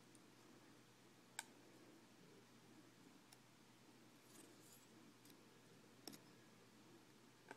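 Near silence broken by a few faint, sharp clicks and light scratching of a small metal precision tool working a tiny screw on the base of a Flip Mino HD camcorder. There are three separate clicks several seconds apart.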